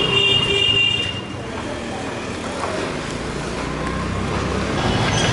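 A vehicle horn sounds for about a second at the start, then a motor vehicle's engine runs with a steady low rumble amid street traffic noise. Another horn begins right at the end.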